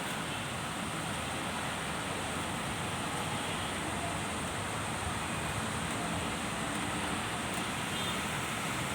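Heavy rain and strong wind, a steady rushing hiss that holds even throughout.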